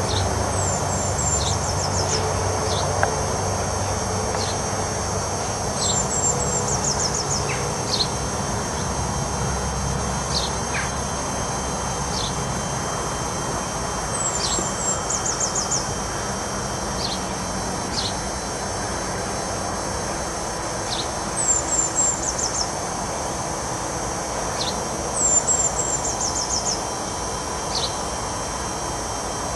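A songbird repeats the same short phrase every several seconds, a few falling chirps followed by a quick run of sweeps, with scattered single chirps from other birds. Underneath runs a steady high insect-like whine and an outdoor hiss, and a low rumble fades away in the first few seconds.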